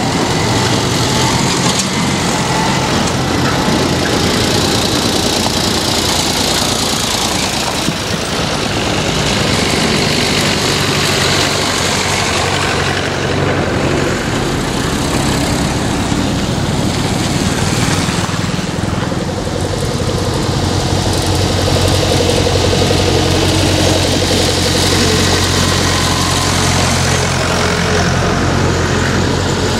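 Engines of vintage farm tractors, an old army-style jeep and a motorcycle running as they drive past one after another at low speed. Engine sound is continuous, with a slight lull about two-thirds of the way in, then a louder low engine hum as the next tractors approach.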